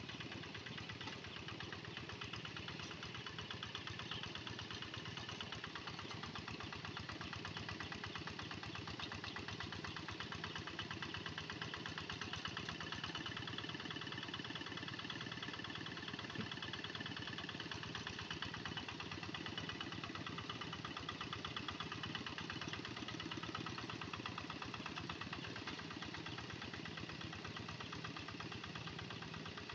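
Kubota single-cylinder diesel engine of a two-wheel walking tractor running steadily with a fast, even beat, under load as the tractor pulls its plough through wet paddy soil.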